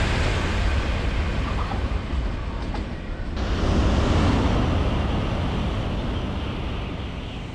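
Shinkansen bullet trains running past: the steady rush and low rumble of the Doctor Yellow inspection train, then, after an abrupt cut about three seconds in, an N700-series train going by, its rush swelling and then slowly fading.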